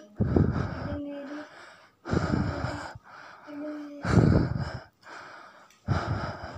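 A person breathing heavily in loud, rasping gasps close to the microphone, four breaths about two seconds apart. A short, steady low tone follows some of the breaths.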